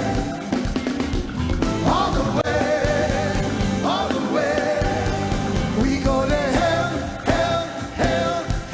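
Live praise-and-worship music: voices singing over instrumental accompaniment.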